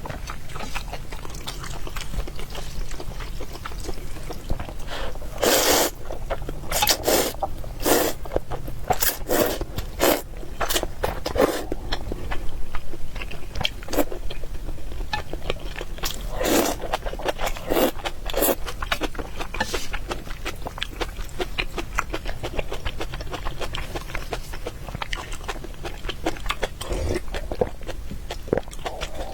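Close-miked eating of spicy instant ramen noodles: slurping in several long pulls, with chewing and wet mouth clicks.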